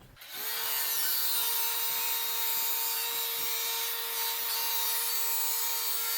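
Electric power saw spinning up about a third of a second in and then running at a steady pitch while it cuts through a Ford flathead V8's road draft tube.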